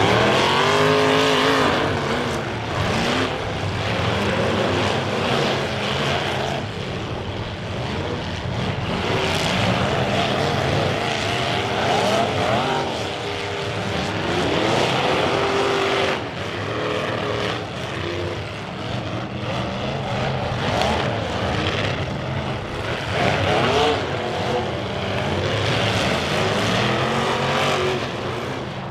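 Several compact demolition-derby car engines revving hard, their pitch rising and falling over one another as the cars accelerate, with a few sharp knocks in between.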